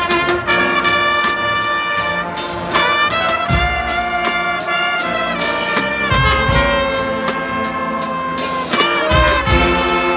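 Guggenmusik carnival band playing loudly: trumpets, trombones and sousaphones holding chords over a steady beat of drums and cymbals, with deep bass notes surging every few seconds.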